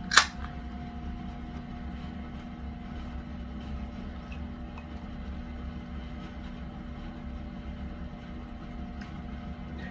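A can of happoshu (low-malt beer) cracked open with one sharp click about a quarter second in, followed by a steady low background hum with faint steady tones.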